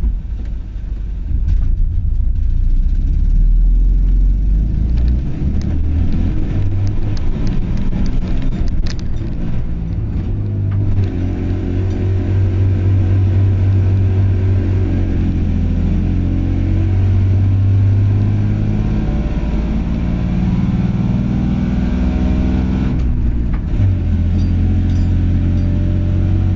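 Car engine running and revving; its note steps up and down every few seconds.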